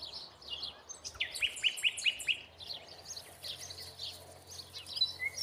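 Small songbirds chirping and twittering, several at once, with a quick run of short downward-sliding notes between about one and two and a half seconds in.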